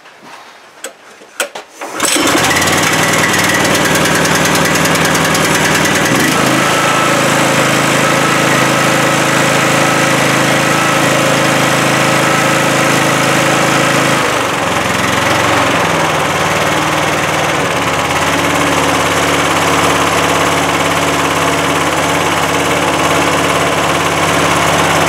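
Predator 420cc single-cylinder four-stroke engine being pull-started: a few clicks from the recoil, then it catches about two seconds in and runs steadily on choke. A little past halfway the note shifts as the choke lever is moved, and the engine settles into a steady run.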